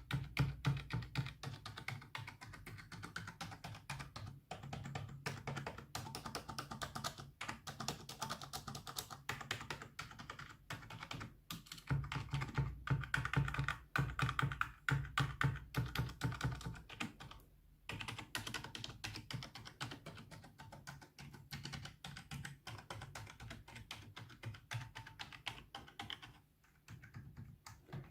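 Typing on a computer keyboard: a fast, continuous stream of key clicks.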